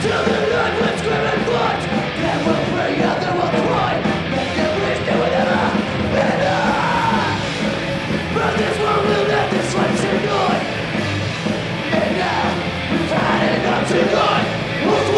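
Punk band playing live: shouted vocals over loud, continuous band music.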